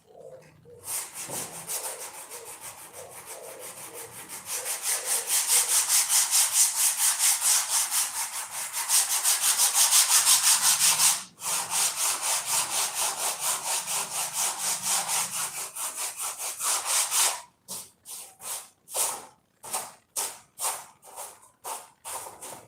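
Hand sanding on a dashboard: quick back-and-forth rubbing strokes, about two or three a second, that break up into slower separate strokes near the end.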